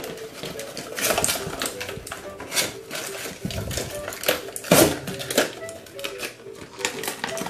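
Cardboard toy box being ripped open by hand, with crinkling of its clear plastic window: an irregular run of sharp tears and crackles, the loudest a little past halfway.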